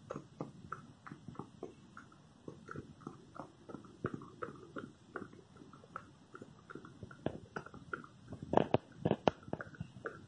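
Sleeping Rottweiler puppy making small, quick mouth and nose noises while it dreams, a few a second and irregular, with a louder cluster near the end.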